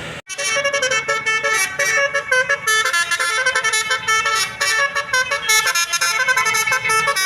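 Bus telolet horn, a set of electrically switched air horns, playing a quick melody of stepped notes, a sholawat tune. It cuts in abruptly just after the start.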